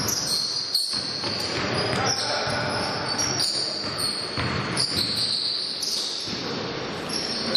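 Basketball bouncing on the court during play, with repeated high sneaker squeaks and scattered players' voices in a gym hall.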